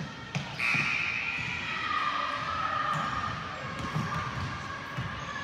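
Basketball dribbled on a hardwood gym floor, several bounces, with a drawn-out high-pitched tone over most of it.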